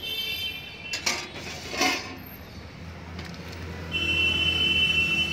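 Two sharp metallic clinks of a serving ladle against steel dishes as kadhi is ladled onto rice, followed about four seconds in by a steady high-pitched tone.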